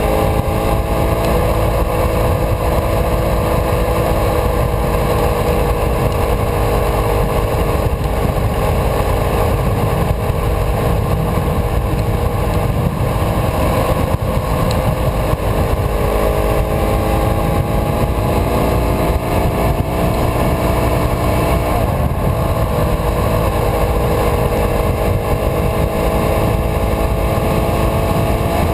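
Motorcycle engine running steadily at cruising speed, heard from the rider's own bike, with heavy wind noise on the microphone behind the windscreen. The engine note drifts gently up and down with the road speed.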